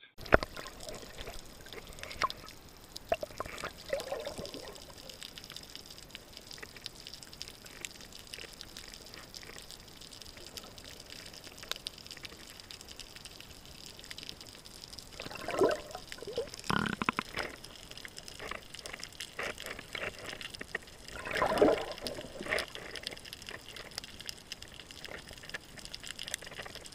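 Underwater ambience picked up by a submerged camera: a steady muffled water hiss with fine crackling clicks, and short gurgling bursts of moving water and bubbles about halfway through and again a few seconds later.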